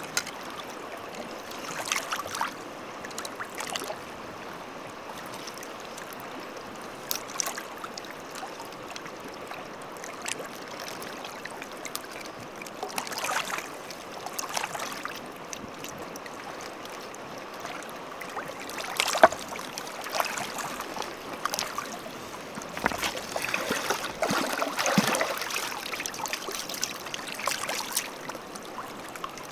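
Flowing stream water running steadily, with scattered sharp clicks and knocks over it. The loudest knock comes about two-thirds of the way through, followed by a busier stretch of knocking and rustling.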